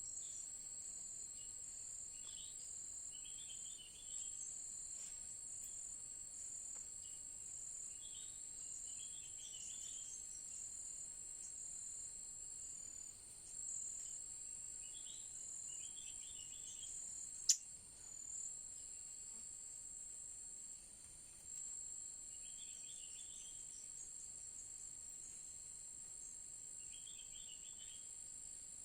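Crickets keep up a steady, high, shrill trill, with clusters of short, high bird chirps every few seconds. A single sharp click comes about two-thirds of the way through.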